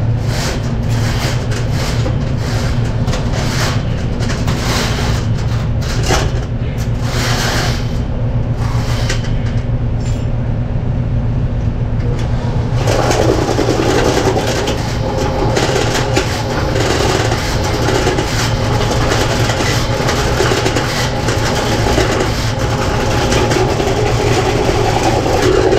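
Electric drain snake machine running steadily as its spinning cable, with a 2.5-inch cutter, is fed by hand into a 3-inch drain. Irregular clicking is heard in the first half. About halfway through the sound turns rougher and fuller.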